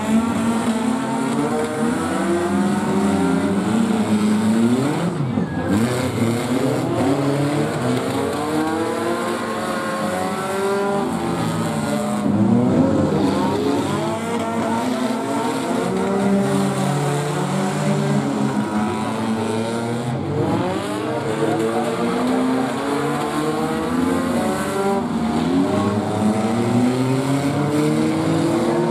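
Several mini figure-8 race cars' engines revving up and down as they lap the track, their pitches rising and falling and overlapping continuously.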